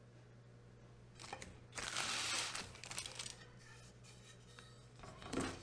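Paper rustling and scraping as a wooden ball and a paper plan are handled on a cutting mat: one loud rustle about two seconds in, a few light ticks, then a shorter rustle with a dull wooden knock near the end, over a low steady hum.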